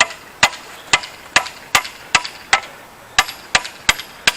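Hand hammer striking the rusted post vise in a steady rhythm, about two or three blows a second with a short metallic ring after each, with a brief pause about halfway through; the blows are working seized, rusty parts loose.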